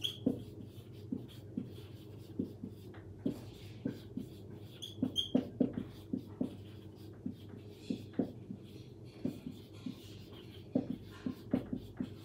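Marker pen writing on a whiteboard: a run of short strokes and taps as words are written, with a couple of brief high squeaks, over a steady low hum.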